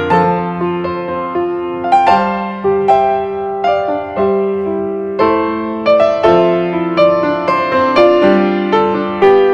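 Background piano music: a gentle melody of single struck notes, each fading away before the next.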